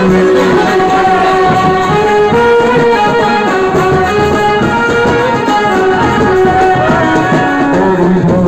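Indian wedding brass band playing a loud melody in long held notes.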